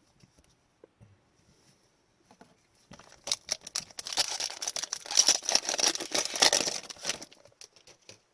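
Foil wrapper of a hockey trading-card pack crinkling and tearing as it is opened, a dense crackle lasting about four seconds that starts a few seconds in, after faint handling ticks.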